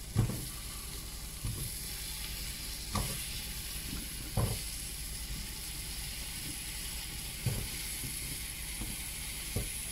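Hot oil sizzling steadily in a stainless steel pan of spices and tomatoes as raw potato chunks are dropped in, with about six soft knocks scattered through.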